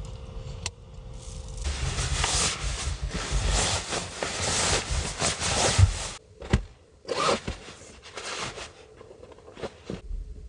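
Rubbing and scraping: about four seconds of continuous scraping, then several short separate strokes.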